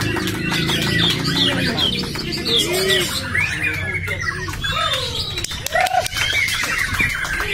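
Many caged songbirds singing at once, a dense tangle of overlapping whistles, chirps and quick sweeping notes, among them a young white-rumped shama (murai batu) singing in its contest cage. A low murmur sits underneath, strongest in the first couple of seconds.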